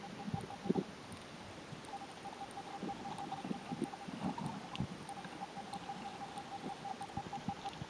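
Muffled underwater sound heard through a submerged camera: irregular low thuds and gurgles of water stirred by swimmers and feeding fish, with a faint steady hum that drops out twice.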